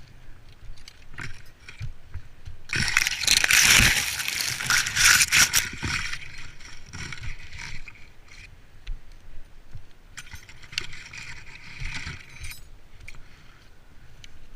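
Branches and leaves rustling and crackling in two bursts: a loud one about three seconds in that lasts about three seconds, and a weaker one near ten seconds.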